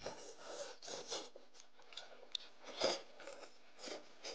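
A person biting and chewing braised lamb leg meat off the bone, in irregular short bursts, the loudest a little under three seconds in.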